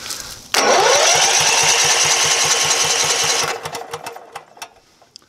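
Electric starter cranking a twin-cylinder generator engine with its spark plugs out, so it spins freely without firing. It starts suddenly with a rising whine, settles into a steady whirr with an even low pulse, then winds down after about three seconds. The engine is being turned over to spread storage oil around inside the cylinders.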